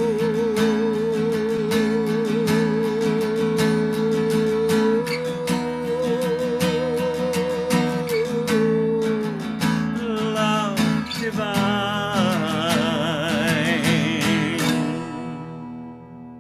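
Acoustic guitar strummed steadily under long, held, wavering sung notes that close the song. About ten to eleven seconds in, a second wavering vocal line joins, and the music then fades out about a second before the end.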